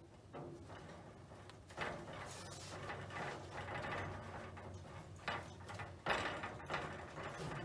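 Hands pressing and rubbing a sheet of carpet, coated in spray adhesive, onto the inside walls of a steel gun cabinet: irregular scraping and rustling strokes, with sharper knocks about two seconds in and again about six seconds in.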